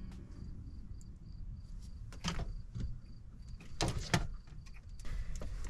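A few sharp clicks and knocks from handling a plastic box fan and its controls while it fails to turn on, with no fan motor running. A faint high chirp repeats evenly in the background.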